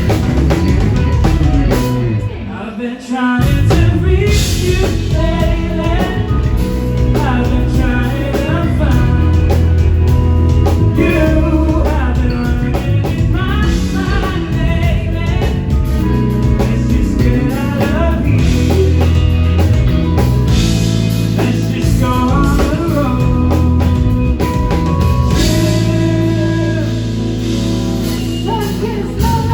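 Rock band playing live, with singing over electric guitar, bass and drum kit; the band drops out briefly about two to three seconds in, then comes back in full.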